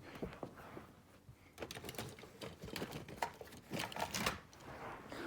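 Light, irregular clicks and taps of a small toy farm baler being handled.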